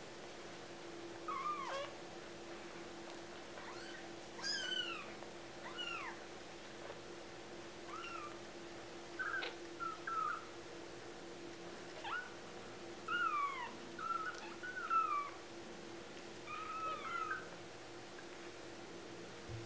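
Two-week-old kittens mewing: a dozen or so short, high-pitched cries, many sliding down in pitch, coming every second or two, over a faint steady hum.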